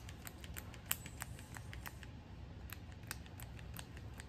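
Light, irregular clicks and taps, several a second, from a small makeup stick and fingertips being handled and dabbed on the face, over a low steady hum.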